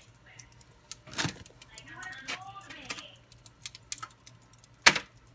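Crinkling aluminium foil and dry jerky strips clicking as they are picked off a foil-lined baking sheet by hand, in scattered small clicks, with a sharper knock about a second in and the loudest near the end.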